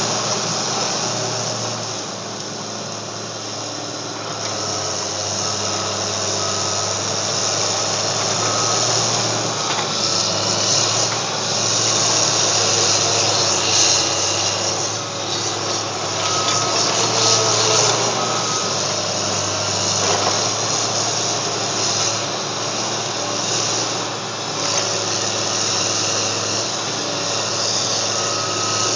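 Bulldozer's diesel engine running steadily under load, with a dense, continuous clatter and scrape of rubble and tracks over it.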